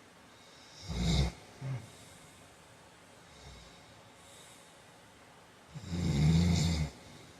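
A man snoring in his sleep. A short snore about a second in is followed by a brief snort, then a pause of several seconds, then a longer, low snore near the end, the loudest of the three.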